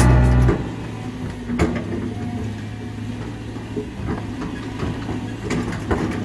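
Heavy construction machinery's diesel engine running steadily, with a few sharp metallic knocks. Background music cuts off about half a second in.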